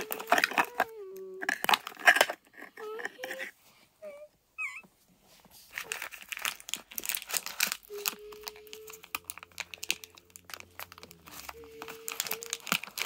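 Crumpled paper and small bits of trash crackling as they are stuffed into a plastic toy garbage truck's hopper, in several bursts. A steady, slightly wavering tone carries on between the bursts.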